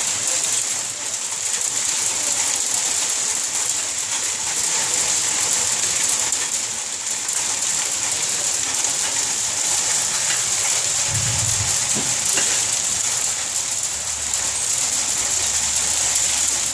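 Heavy rain mixed with hail pouring down: a steady, dense hiss.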